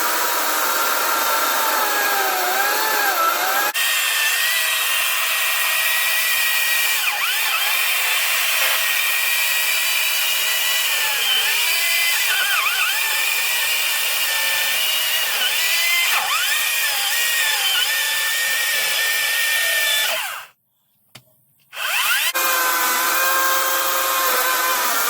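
Chainsaw running at full speed while cutting through wood, its pitch dipping again and again as it bogs under load and then recovering. It stops briefly about two-thirds of the way through and starts again a couple of seconds later.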